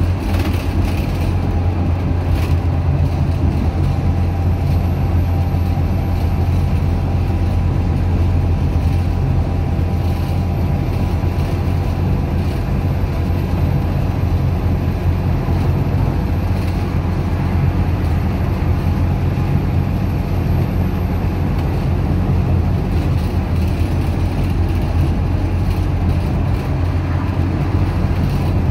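Dennis Dart SLF single-deck bus with a Euro 3 Cummins diesel engine, heard from inside the saloon, running steadily on the move: a loud, even low drone over road noise.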